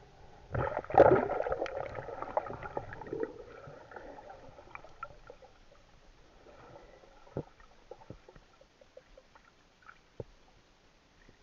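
Muffled underwater audio from a camera held in a river: a loud burst of bubbling, churning water about half a second in that fades over a few seconds, then scattered faint clicks and knocks.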